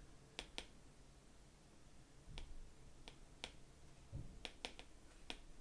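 Faint, irregular clicks of an Apple Pencil's plastic tip tapping and stroking on an iPad Pro's glass screen, about nine in all, with a couple of soft low thumps.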